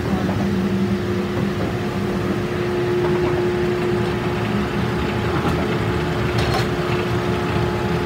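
Block mill's large circular saw blade and its drive running free with a steady hum, the blade not yet in the wood. A few light knocks sound about five and a half and six and a half seconds in.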